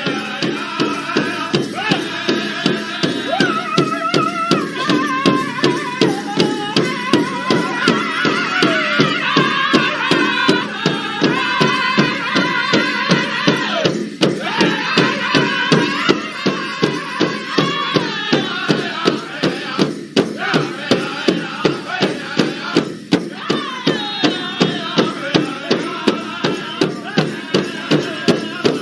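Native American–style drumming and chanting: a steady drumbeat of about three beats a second under voices chanting in wavering, sliding lines.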